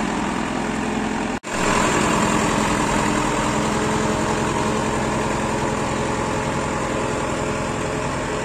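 John Deere 2755 turbo tractor's diesel engine running steadily at low revs while pulling a row cultivator through soft soil, with a split-second dropout about a second and a half in.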